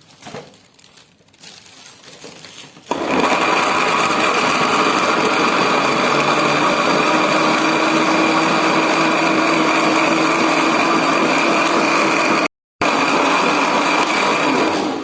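Electric kitchen blender switched on about three seconds in, its motor running with a steady whine as it blends sliced turmeric root with warm water. The sound breaks off for a split second near the end.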